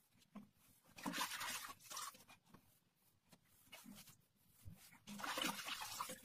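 A damp sponge scrubbed over small mosaic tiles to wipe off grout, in two rubbing bursts of about a second each, one about a second in and one near the end.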